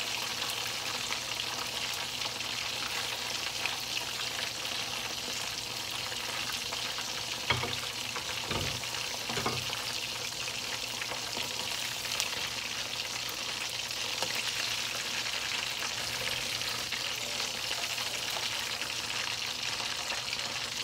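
Cornstarch-coated chicken wings deep-frying in hot oil in a wok, a steady sizzle: their first, short frying pass. A few brief knocks come near the middle.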